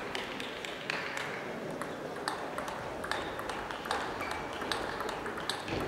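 Table tennis balls clicking off bats and tables in play elsewhere in the hall: many short, irregular clicks over steady background noise.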